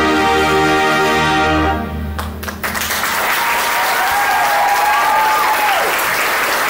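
A marching band's brass holds a full chord that cuts off a little under two seconds in, followed by two sharp hits. The crowd then breaks into applause and cheering, with a drawn-out whistle.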